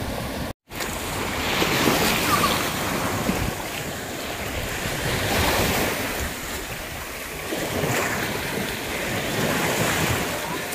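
Sea waves surging and washing over a shallow rocky shore, swelling and easing every few seconds, with wind rumbling on the microphone. The sound cuts out for a split second near the start.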